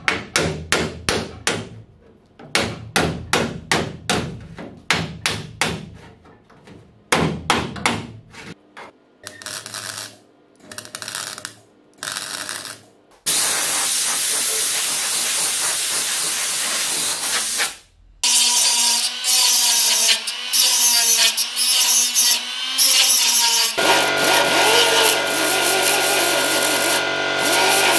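Ball-pein hammer tapping a freshly welded steel patch panel on a rear wheel arch: rapid sharp metal-on-metal strikes, about three or four a second, for the first eight seconds. After a few short noisy bursts comes a steady hiss lasting about five seconds. Then, from about two-thirds of the way in, a small rotary grinder with a disc runs steadily against the arch metal.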